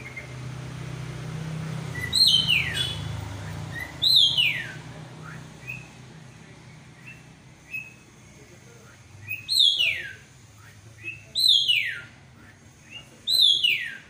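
Caged black drongo (srigunting hitam) calling: loud whistles that slide steeply down in pitch, five of them about two seconds apart, with short soft chirps in between.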